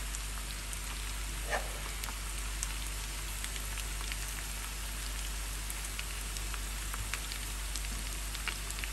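Chicken and potatoes sizzling in a frying pan: a steady hiss with faint crackles, and one soft knock about one and a half seconds in.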